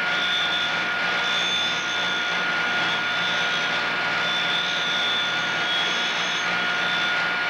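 CUTTERMASTER end mill grinder running with a steady whine while its grinding wheel grinds a corner radius onto an end mill's flute. Higher, thin tones come and go over the steady running sound.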